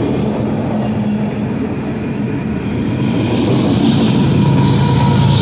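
Grain hopper cars of a freight train rolling past close by: a loud, steady rumble of steel wheels on the rails.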